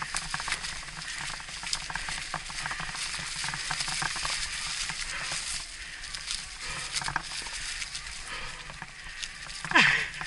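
Electric mountain bike riding up a rough trail: a steady crunching and crackling of tyres over loose stones, with scattered clicks and rattles. A brief louder sound, falling in pitch, near the end.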